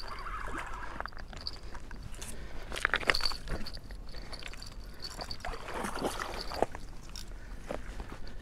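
Handling noise from hands working a fishing line and spinning reel right at the microphone: irregular clicks, taps and rubbing. A faint high thin tone comes and goes behind it.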